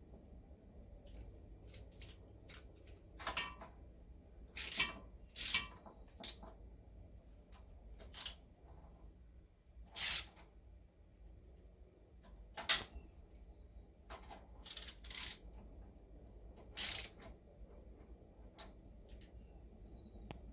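Scattered metallic clicks and clinks of a hand tool and loose parts worked inside the open crankcase of an International Harvester Type M hit-and-miss engine, at the connecting-rod big-end bearing. The loudest, a little past halfway, is a sharp metal clink with a brief high ring.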